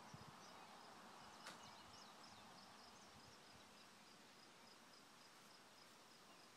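Near silence: faint outdoor ambience with a quick run of soft, high chirps, from a bird or insect, in the first half.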